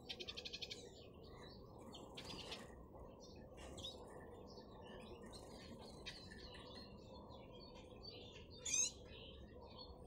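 Caged canaries and a European goldfinch chirping and twittering softly: a quick trill in the first second, then scattered short high calls, with one louder chirp near the end.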